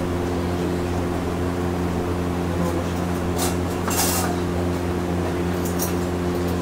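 Steady low machine hum of a kitchen appliance or fan, with a few short knife strokes on a plastic cutting board as scallions are sliced, two of them past the middle and a couple more near the end.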